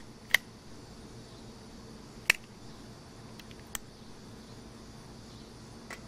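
Sharp clicks of a black folding knife being handled: a loud one about a third of a second in, another about two seconds in, then a few fainter ticks, over a faint steady hiss.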